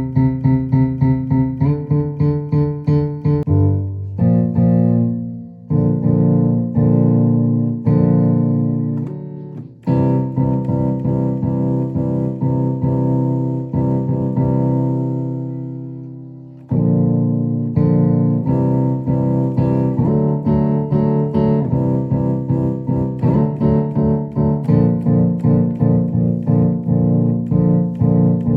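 Roland Juno-DI keyboard played with a piano sound: quickly repeated chords, then long held chords that fade away near the middle, then repeated chords again. The keyboard has a faulty pitch bend that does not stay in tune.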